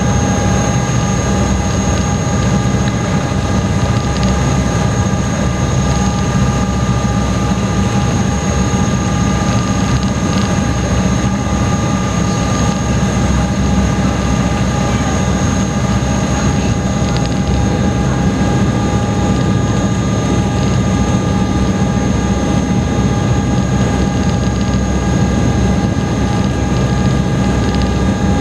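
High-speed passenger boat under way, heard on board: a steady, loud engine rumble with several constant whining tones above it, unchanging throughout.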